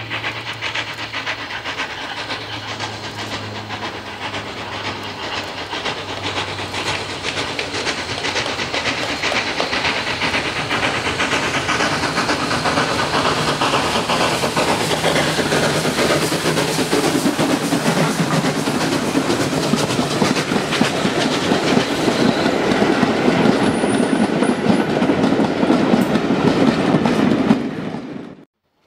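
Steam locomotive hauling a train of carriages, its beats and wheel clatter on the rails growing steadily louder as it approaches, then the carriages rolling past close by; the sound cuts off abruptly near the end.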